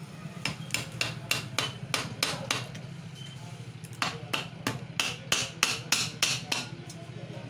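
Hammer striking a punch held against the end plate of a 1 HP monoblock pump motor, working round the rim to knock the plate off the motor body. Two runs of quick, even metallic taps, about three to four a second, with a short pause between them, over a steady low hum.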